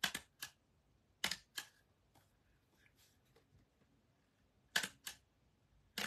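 Tim Holtz mini hand stapler stapling paper: three sharp double clicks, one at the start, one about a second in and one near the end, the two clicks of each about a third of a second apart.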